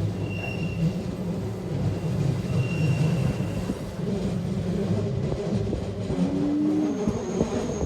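Passenger train running along the rails, heard from inside the carriage as a steady low rumble, with a short higher tone about six seconds in.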